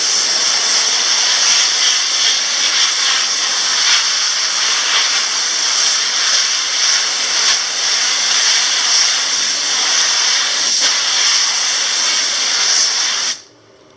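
Compressed air from an air compressor blow gun hissing steadily as it blows dust out through a reusable electrostatic HVAC filter, cutting off sharply near the end.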